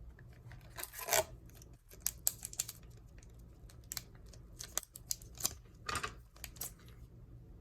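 Trading cards being handled and flipped through by hand: a string of short, irregular card swishes and snaps.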